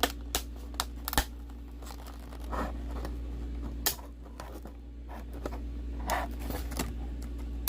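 Stiff plastic and cardboard toy-car packaging being pried and pulled apart by hand: scattered sharp clicks, scrapes and short tearing sounds, with a few louder snaps in the first second or so.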